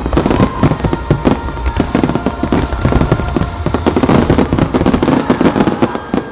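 Fireworks finale barrage: many aerial shells bursting in quick succession, a dense run of overlapping bangs and crackle. Music plays underneath. The bangs thin out just before the end.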